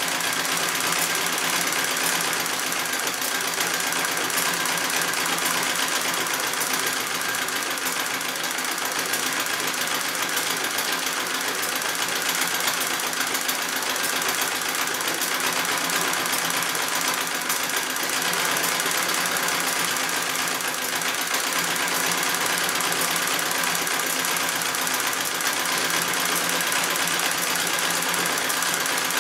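Singer 66 treadle sewing machine running steadily, the needle stitching without a break while the quilt is guided by hand in free-motion quilting.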